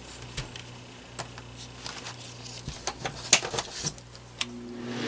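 Scattered sharp plastic clicks and taps as a small personal fan is handled. About four seconds in, its replacement electric motor switches on and starts to hum, getting louder as the blades spin up.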